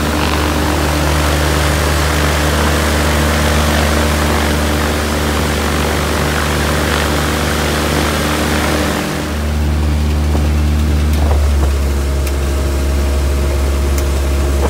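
Viking 130 aircraft engine, a Honda-based four-cylinder, running steadily with its propeller turning. Its note dips briefly about nine seconds in, then runs a little louder.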